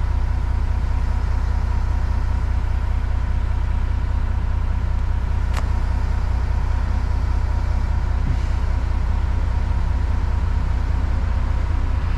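Simulated heavy truck's diesel engine idling steadily, a constant low rumble, with a single sharp click about five and a half seconds in.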